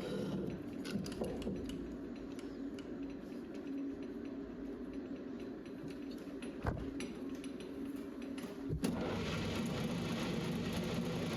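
Small metal lathe running while turning a tough EN19 steel shaft, a steady hum with scattered ticks and a single knock. Just under nine seconds in the sound turns suddenly louder and harsher and stays steady: cutting chatter, which the machinist puts down to a small, non-rigid lathe cutting material this size and this grade.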